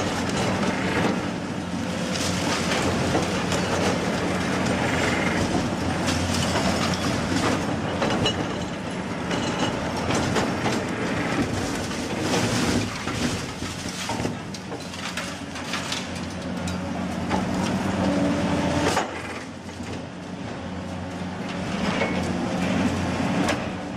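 Heavy machinery running: a steady engine drone with clattering and knocking over it, dipping briefly near the end.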